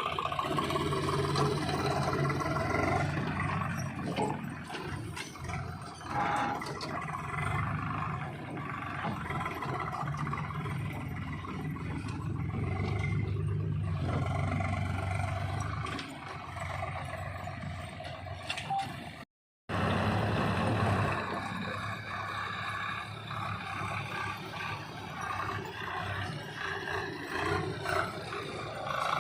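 Heavy diesel machinery working while loading mud: an engine running with its pitch rising and falling, with occasional knocks and scrapes. The sound drops out completely for a moment about two-thirds of the way through.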